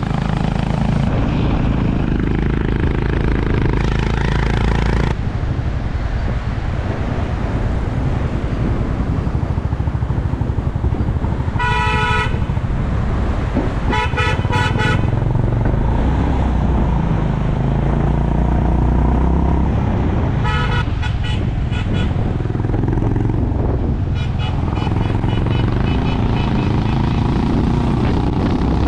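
Honda CB350 RS's air-cooled single-cylinder engine running on the move, with wind noise, its pitch rising and falling as the speed changes. A horn sounds about a third of the way in, then goes in clusters of short beeps several times through the rest.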